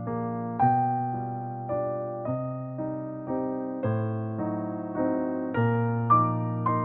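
Background music: a soft electric piano playing slow chords, a new chord struck about every half second to second and fading between strikes.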